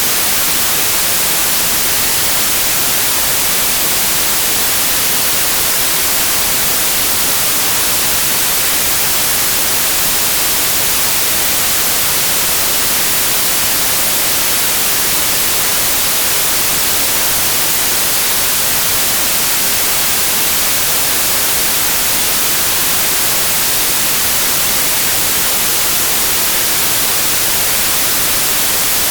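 Generated white noise: a steady, unchanging hiss spread evenly across the whole range, used as a tinnitus masker.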